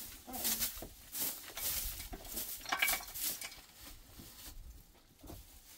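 Irregular scraping and clattering, as of things being handled and set down, with a short bending call about half a second in.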